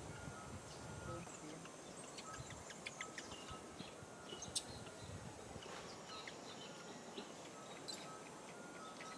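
Quiet outdoor ambience: a faint steady hiss with scattered short, high chirps and ticks, and two sharp clicks, one near the middle and one near the end.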